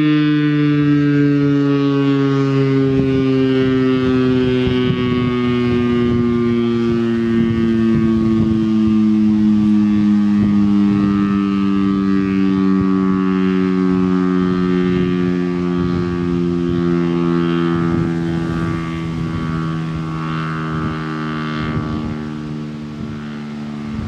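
Federal Signal STL-10 outdoor warning siren winding down: its single tone slides slowly and steadily lower and fades, as the rotor coasts after the motor is cut. Gusts of wind buffet the microphone throughout.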